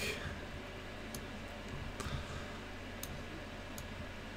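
Computer mouse button clicking four times, a second or so apart, over a faint low hum.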